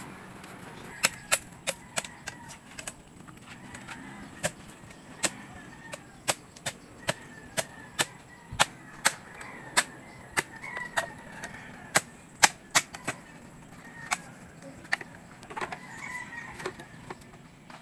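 Irregular sharp knocks of a tool striking bamboo poles as they are worked into a footbridge, about one or two a second, some much louder than others.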